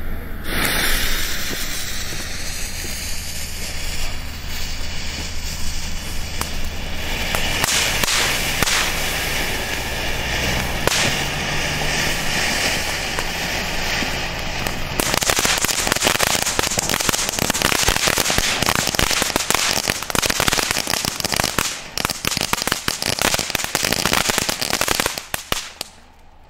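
Weco Domino ground fountain burning: a steady hiss of spraying sparks that turns to dense crackling about halfway through, then dies out near the end.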